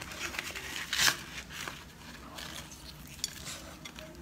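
Leaf wrapping of a zongzi rustling and crinkling as it is peeled open, with a utensil clinking and scraping against a ceramic plate; one louder rustle about a second in.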